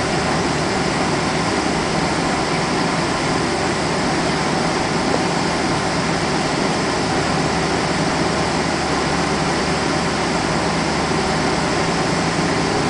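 Boeing 777 cabin noise while taxiing: a steady rush of air and engine hum heard from inside the cabin. A rising whine begins near the end.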